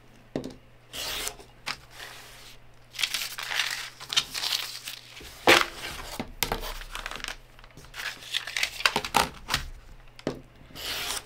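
Rotary cutter slicing through foundation paper along a ruler on a cutting mat, with paper rustling and crinkling as the roll is handled. A few sharp knocks, the loudest about five and a half seconds in.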